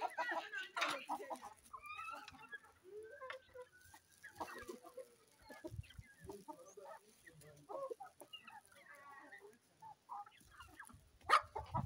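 Domestic chickens clucking, a continual run of short calls from several birds overlapping, loudest in the first second.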